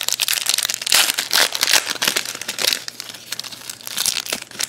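Trading-card pack wrappers crinkling and tearing as packs are handled and opened, in quick, irregular rustles.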